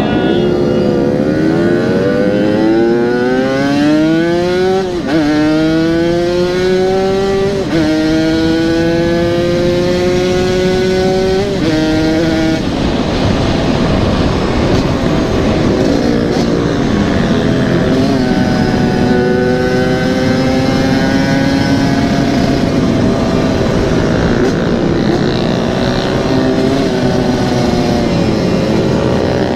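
Yamaha RX-King 135cc single-cylinder two-stroke motorcycle with an aftermarket exhaust accelerating through the gears. The pitch climbs and drops back at three upshifts in the first dozen seconds, then the engine eases off to a steadier cruise with a gentler rise later.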